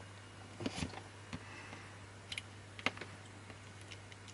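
A few faint, scattered clicks and taps from fingers handling a small circuit board in an acrylic case and turning its knobs, over a steady low hum.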